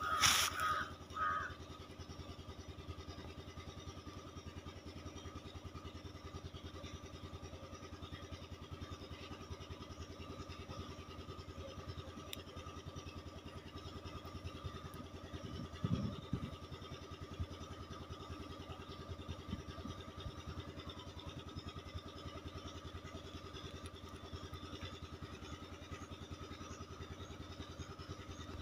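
A steady mechanical hum, like a small engine or motor running, with an even rapid pulse. There is a short louder sound at the start and a brief thump about sixteen seconds in.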